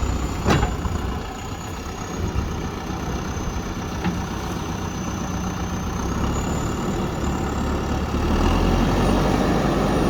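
JCB backhoe loader's diesel engine running steadily, with one sharp knock about half a second in. The engine grows louder and deeper about eight seconds in.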